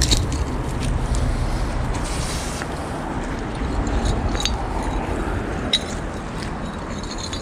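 Fast-flowing river rapids rushing steadily, with a few light clicks of rusty chain and wire being handled, about four and six seconds in.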